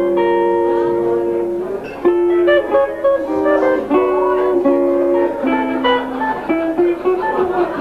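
Acoustic guitars playing an instrumental passage, held notes and chords changing every second or so, with no singing.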